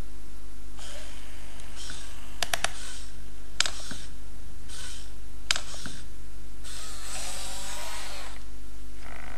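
Hacked i-Cybie robot dog's leg servos whirring in short bursts as it moves, with a few sharp clicks and a longer whirr about seven seconds in, over a steady low hum.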